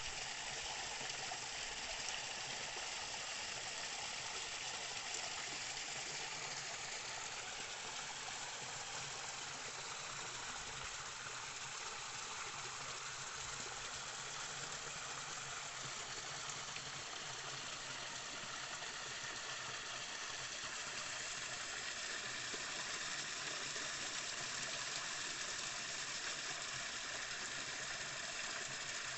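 Small waterfall: running water rushing steadily over rocks.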